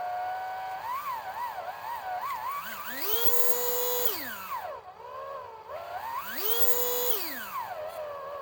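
HO slot car motor with freshly broken-in bulkhead bushings whining as the throttle is worked: the pitch wobbles up and down, then twice climbs to a high steady whine held for about a second before falling away. It shows quick throttle response.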